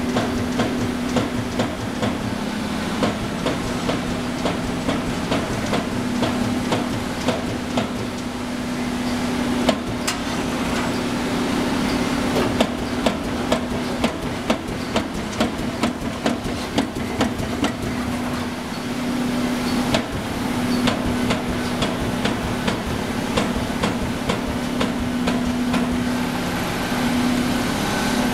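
A 55-ton Amada Coma 567 CNC turret punch press cycling, its ram striking again and again in sharp metallic knocks, often in quick runs. A steady machine hum runs underneath and drops out now and then.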